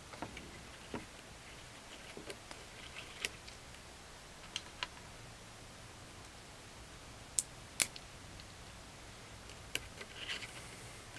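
Light metallic clicks and taps of an Allen wrench and small detent screws being worked on a paintball marker's body, scattered irregularly, with two sharper clicks close together about three-quarters of the way through.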